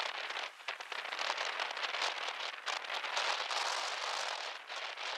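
Steady crackling hiss of splashing water, swelling and fading every second or so.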